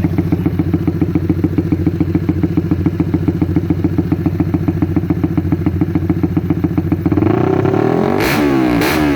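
RS150 motorcycle's single-cylinder engine running through a Vmax stage 2 conical aftermarket exhaust. It idles with an even, pulsing beat, then about seven seconds in it is revved in quick throttle blips that rise and fall in pitch.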